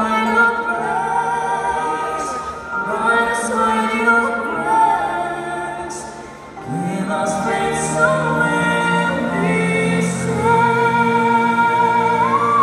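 Music with a singing voice holding long notes, the last one wavering near the end; the music dips briefly about halfway through.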